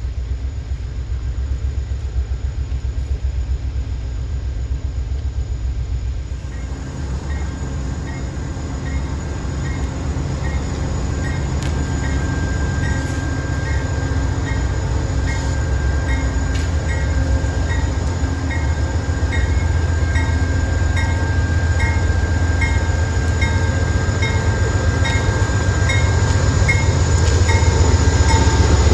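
Freight train's diesel locomotives running with a heavy low rumble that grows louder near the end, as the train moves out. From about a quarter of the way in, a bell rings steadily at about one and a half strokes a second.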